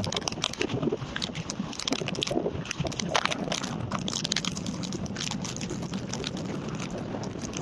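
Cyclone-force wind gusting and buffeting the microphone, a rough, uneven rush full of sharp crackles.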